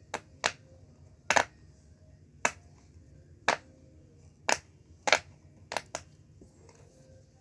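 Silicone bubbles of a heart-shaped pop-it fidget toy being pressed through one at a time, about nine sharp pops spaced irregularly, roughly one a second.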